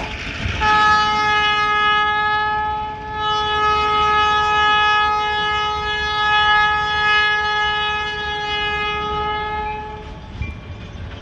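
Freight locomotive's air horn sounding one long steady blast, held for about nine seconds before dying away near the end, over the low rumble of the moving train.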